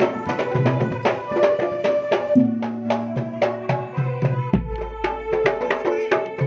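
Jidor pencak silat accompaniment music played loud through a sound system: fast drum strokes over sustained bass notes. About four and a half seconds in, a deep low boom lasts over a second.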